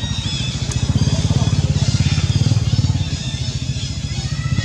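A small engine running steadily nearby with a rapid low throb, growing a little louder about a second in, with faint high chirps above it.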